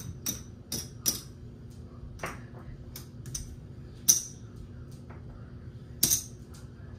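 Casino chips clicking against each other as they are stacked and set down on the place bets of a craps table, in irregular sharp clicks, the loudest about four seconds and six seconds in.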